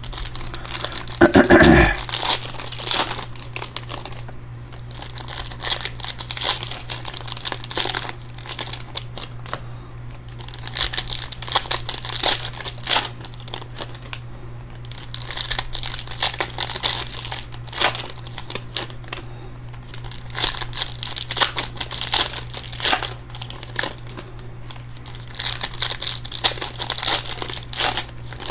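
Foil wrappers of trading-card packs being torn open and crinkled by hand, in repeated bouts every few seconds, with a louder rip about a second in.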